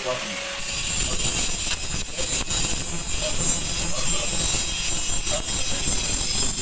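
Stick (arc) welding arc burning steadily with a dense crackling hiss as a vertical weld is run.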